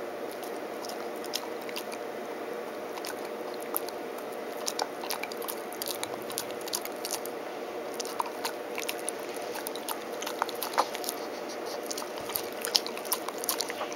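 Cocker spaniel chewing small crunchy treats taken from the fingers. Irregular sharp crunches and teeth clicks come thicker from about a third of the way in, over a steady low hum.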